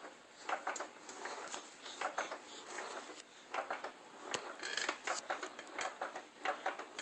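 Soft, scattered clicks and rustles, like handling noise, coming irregularly several times a second.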